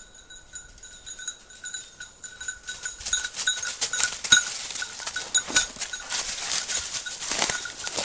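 A small bell on a running dog's collar jingling continuously in irregular pulses. From about three seconds in it is joined by louder rustling and crunching of dry leaves and brush.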